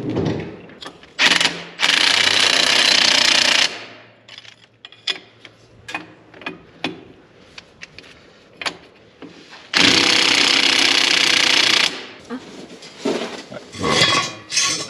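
Cordless impact wrench hammering on the tine bolts of a rotary power harrow, in two runs of about two seconds each, the first preceded by a brief blip. Scattered light metal clicks and clinks in between.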